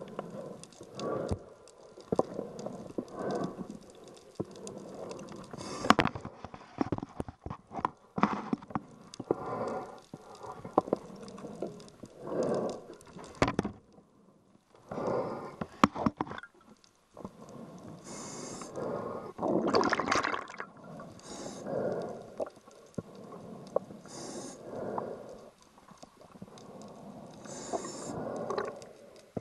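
Scuba diver breathing through a regulator underwater: bubbling, gurgling exhalations and hissing breaths coming in surges every few seconds, with scattered sharp clicks and knocks.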